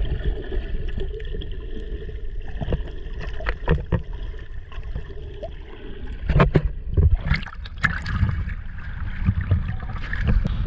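Water sloshing and splashing around a waterproof camera at the surface, muffled while it is under water, over a steady low rumble. A few sharper splashes come about six to eight seconds in.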